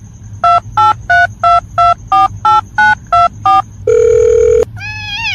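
Telephone keypad tones: ten short two-pitch beeps at about three a second, as when a number is dialed, then one longer, lower beep. A short pitched call that bends up and down follows near the end.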